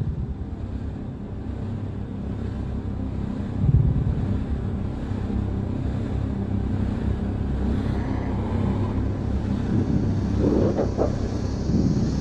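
A deep, steady rumbling drone that swells a few times, with a brief brighter rise near the end.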